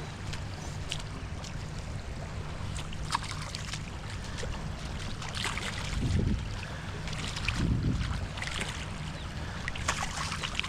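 Steady wind rumble on the microphone with water sloshing in the shallows. Two brief louder swishes come about six and eight seconds in.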